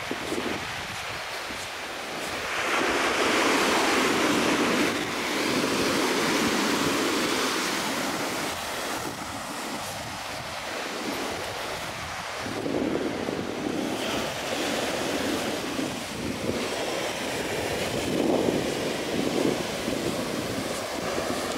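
Ocean surf breaking and washing up a beach in surging swells, the loudest a few seconds in, with wind buffeting the microphone.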